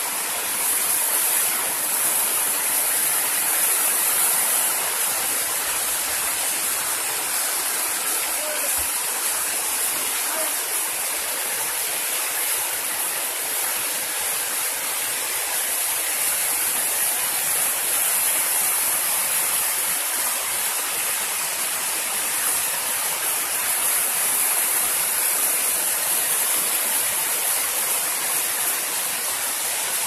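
Waterfall: water spilling over stepped rock terraces in a steady, even rush with no breaks.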